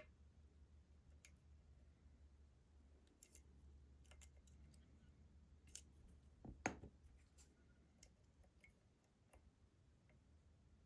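Faint, scattered small clicks of a lock pick and slider fork working the sliders inside an ASSA Desmo slider lock, with one louder click a little past halfway, over a low steady hum.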